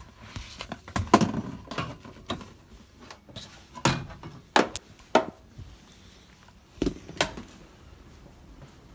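A series of about eight irregular knocks and clunks, a few seconds apart in small clusters, with no steady engine sound.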